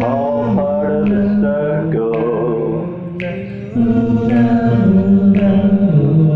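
A cappella doo-wop singing: several voices in close harmony holding sustained chords while the upper line moves over them, with no instruments. It gets louder about four seconds in.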